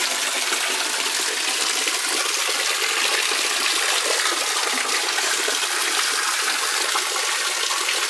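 Water from an old, still-working fountain splashing steadily into its pool, a continuous even rush with no breaks.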